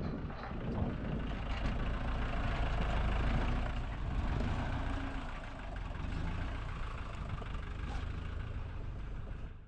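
A vehicle engine running steadily at idle with a deep rumble, falling away near the end.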